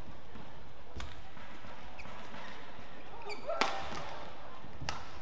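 Badminton rally: rackets striking the shuttlecock with sharp cracks, about a second in, loudest about three and a half seconds in, and once more near the end. Shoes squeak on the court just before the loudest hit.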